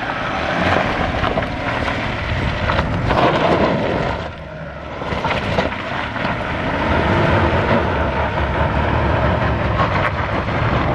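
Ineos Grenadier 4x4 engine working under load as it claws up a rutted, rocky climb without its cross-axle lockers. Tyres crunch and scrabble on loose stones, with scattered clicks of gravel. The engine note sags briefly about four seconds in, then builds again and holds.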